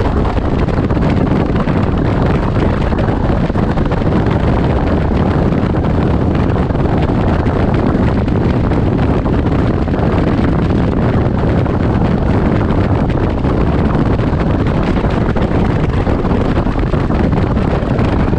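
Can-Am Ryker Rally three-wheeler cruising at a steady highway speed: steady wind rush buffeting the microphone over the machine's engine and road noise.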